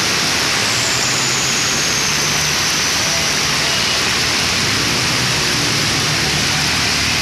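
Heavy rain pouring down on a flooded street, with floodwater rushing, a loud steady hiss. A low engine hum from vehicles driving through the water runs underneath.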